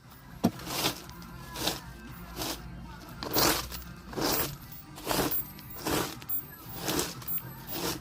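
Rhythmic swishing strokes, a little under one a second, of fallen leaves being cleared from a lawn by hand, with a sharp click about half a second in. Faint music plays underneath.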